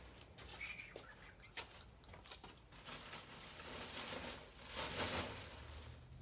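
Light handling noise: scattered clicks and taps, then a rustling, crinkling stretch that is loudest about four to five seconds in.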